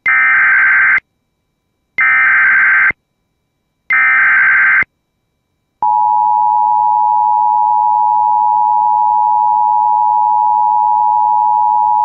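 Emergency Alert System SAME header: three one-second squawks of digital data, about two seconds apart, encoding a severe thunderstorm warning. About six seconds in, the steady two-tone EAS attention signal begins.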